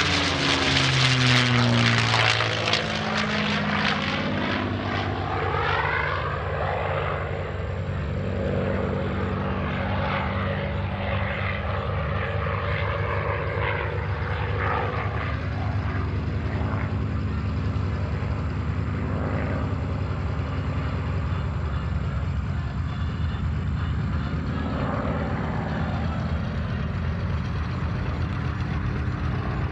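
P-51D Mustang's Packard Merlin V-12 engine making a loud, fast pass, its pitch dropping over the first few seconds. It then settles into a steady drone as the fighter flies on through its aerobatic routine.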